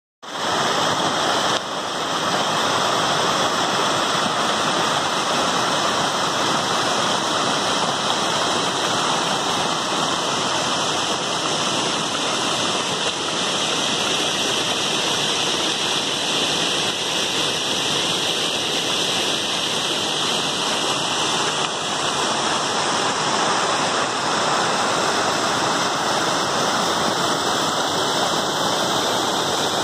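Muddy rainwater runoff pouring over a small eroded red-earth bank and rushing steadily across rocks and loose earth: flash floodwater from heavy rain.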